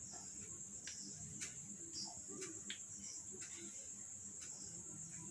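Faint steady high-pitched trill of insects such as crickets, with a few light strokes and taps of cloth and marker on a whiteboard.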